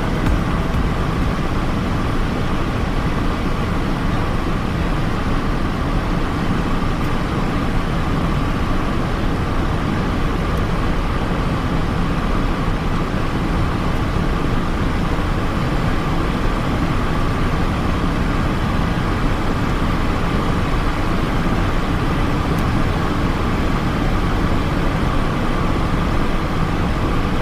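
Steady cockpit noise of a Cessna Citation XLS business jet on final approach and landing: an even rush of airflow and engine sound, with a faint steady mid-pitched tone under it.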